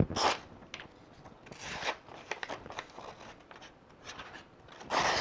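A stainless tanto folding-knife blade slicing through a sheet of paper: a few short papery hisses and rustles, the loudest near the end.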